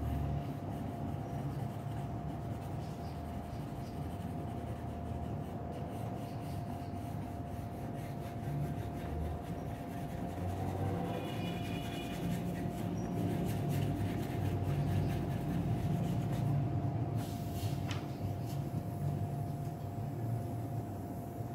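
Pencil strokes scratching and rubbing on drawing paper while sketching and shading, over a steady low rumble and a faint steady hum.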